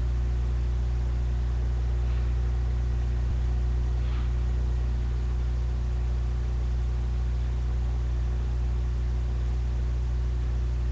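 A steady low hum that does not change, with a faint hiss above it.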